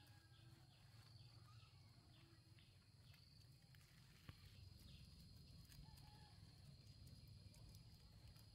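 Near silence: quiet outdoor ambience with a steady faint high hum and faint repeated bird chirps in the first few seconds, and one small click about four seconds in.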